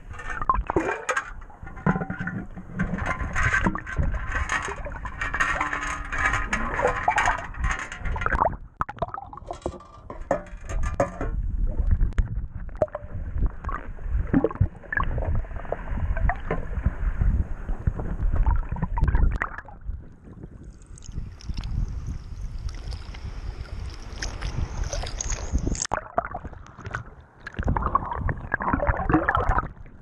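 Muffled sloshing and gurgling of water around a camera held under the surface, with scattered clicks and knocks all through.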